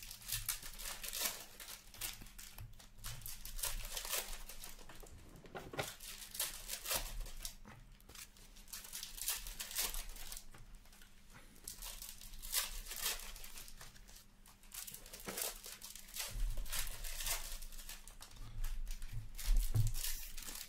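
Upper Deck Ice hockey card packs being torn open and their wrappers crinkled, a continuous run of crisp crackles and rips, with cards handled between.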